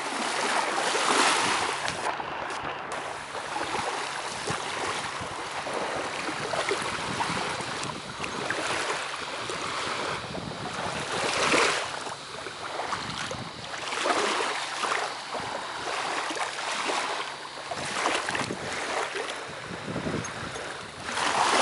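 Small waves lapping and water sloshing in shallow water, with wind buffeting the microphone; the noise swells and eases irregularly.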